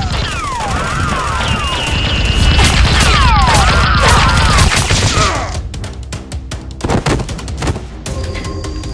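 Rapid gunfire sound effects with whizzing ricochets, dense for about five seconds and then thinning to a few scattered shots. Steady musical tones come in near the end.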